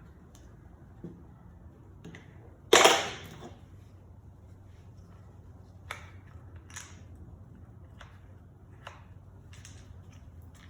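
A single loud sharp clack about three seconds in, then scattered light clicks and taps as chainsaw handle parts are handled during reassembly, over a low steady hum.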